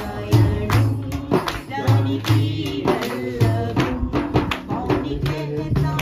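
Devotional group singing accompanied by a hand frame drum beaten in a steady rhythm, its deep strokes falling in pairs about every one and a half seconds, with sharp strikes between them.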